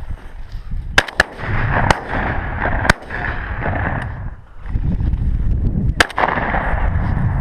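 Shotgun shots at flushing quail: a quick string of sharp reports in the first three seconds, then a close pair about six seconds in, over wind rumbling on the microphone.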